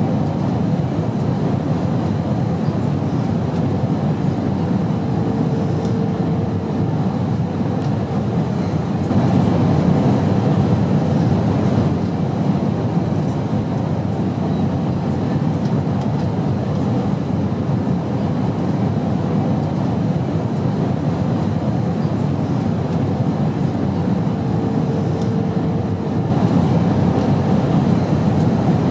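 Airplane engine noise, a steady low drone. A faint brief tone sounds twice over it, and the drone grows slightly louder about a third of the way in and again near the end.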